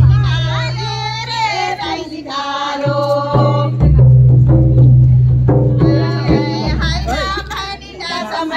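Music with a singing voice over a deep held bass note that breaks off briefly a few times.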